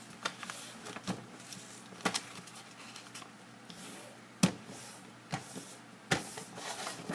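A sheet of paper being folded and creased into triangles: scattered soft rustles and short sharp taps and creases, the sharpest about four and a half seconds in.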